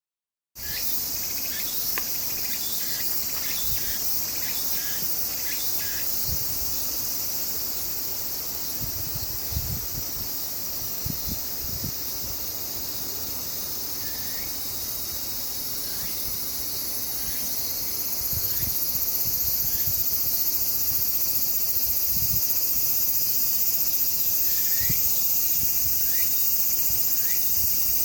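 Outdoor insect chorus: a steady high-pitched buzzing and trilling that grows louder about two-thirds of the way through, with scattered short chirps and a few low bumps.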